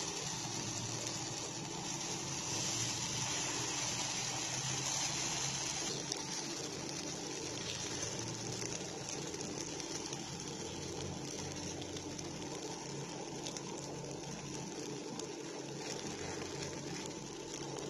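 Moringa-flower chilla batter sizzling steadily in hot oil in a nonstick frying pan.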